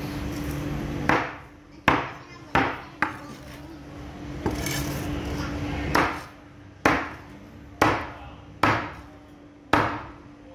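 Large knife chopping tuna into chunks on a wooden cutting board: about nine sharp knocks of the blade striking through the fish into the board, coming roughly once a second.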